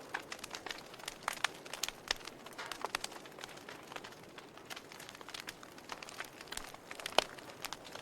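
Wood fire burning in a fireplace: irregular crackling and sharp pops over a steady soft hiss, with one louder pop about seven seconds in.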